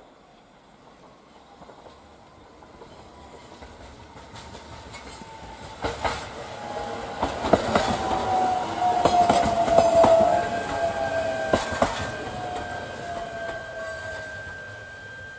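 Shinano Railway SR1-series electric train (liner set S102) passing at close range, growing louder as it nears, with sharp clicks of the wheels over rail joints and a whine that slowly falls in pitch as it goes by.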